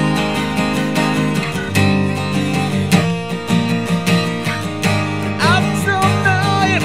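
Steel-string acoustic guitar strummed in a steady rhythm, with a higher line sliding in pitch about five and a half seconds in.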